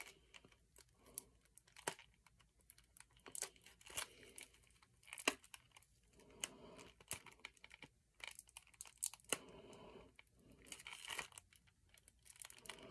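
Packaging of a CD box set being torn and worked open by hand: scattered faint crinkling and tearing with sharp little clicks, the package proving hard to open.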